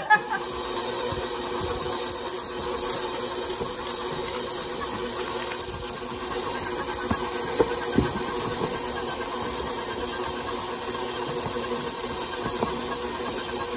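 Electric stand mixer running steadily, its flat beater churning thick chocolate chip cookie dough in a stainless steel bowl, with a couple of brief knocks near the middle.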